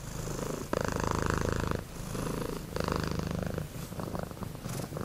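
Domestic cat purring, in swells of about a second each with short dips between breaths, growing fainter near the end.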